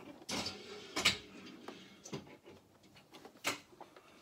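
A few sharp plastic clicks and light handling noises at a Toyota sewing machine's needle and bobbin area as a bobbin is fitted, with no stitching; the loudest click comes about a second in.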